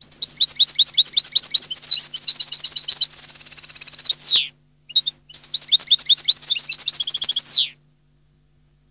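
European goldfinch singing in the Neapolitan song style: two phrases of rapid, high twittering notes, the first ending in a long buzzy trill that slurs downward, with a short pause between them. A faint steady low hum lies underneath.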